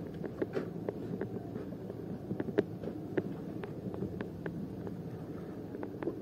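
Low steady hum of a boat's engine, with scattered light clicks and knocks.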